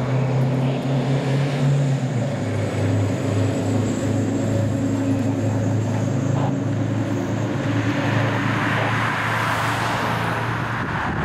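Fire truck with a two-stroke Detroit Diesel V8 engine driving past, its engine running with a steady low drone that drops in pitch about two seconds in. Tyre and road noise rises toward the end.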